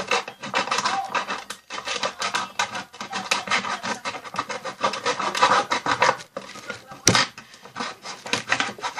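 Plastic sour-cream tub being cut: a rapid rasping scrape made of many short strokes, with one sharp click about seven seconds in.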